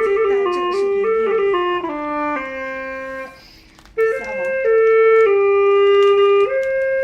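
Background music: a melody of held, woodwind-like notes stepping up and down, which breaks off briefly a little past the middle and then resumes.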